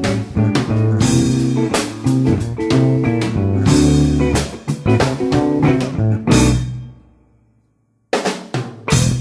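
Background music: a band groove with drum kit and guitar that stops and dies away about seven seconds in. After a brief silence, two short band hits close it out.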